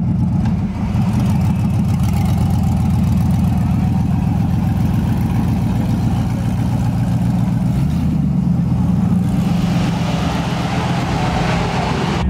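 Drag-racing pickup truck's engine idling and rolling slowly past, with a steady, pulsing low rumble. About eight seconds in the engine note shifts, and another car's engine comes in over the last few seconds.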